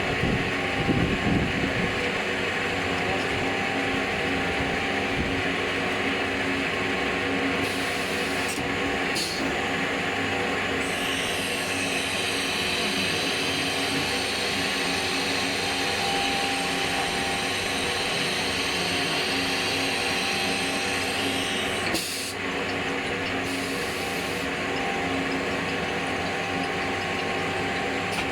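Stone CNC router running with a steady machine whine over an even grinding hiss. A higher-pitched whine sets in about eleven seconds in and cuts off with a click about twenty-two seconds in.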